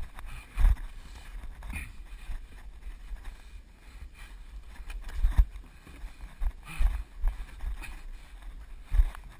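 Irregular dull thumps of a runner's footsteps and body jolts picked up by a body-worn GoPro action camera, with rubbing and rustling on the camera, as he steps and clambers over low barriers on a gravel and dirt course.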